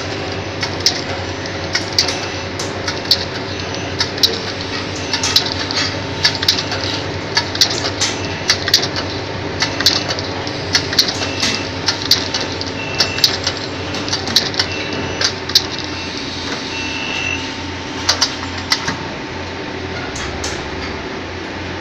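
Automatic pill loader machine running: a steady mechanical hum with frequent sharp metallic clacks, about one or two a second, as the loading head drops pills into the plate.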